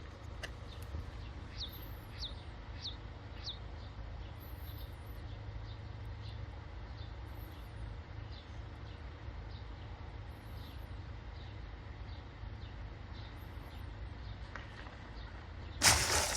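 Small birds chirping outdoors: short falling chirps repeated about twice a second, with fainter, very high chirps every second or so, over a steady low rumble. Near the end comes one loud, brief burst of noise.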